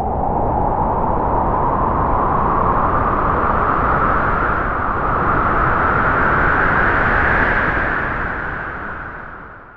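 A gust of wind blowing in a steady rushing whoosh whose pitch slowly rises, then dies away near the end.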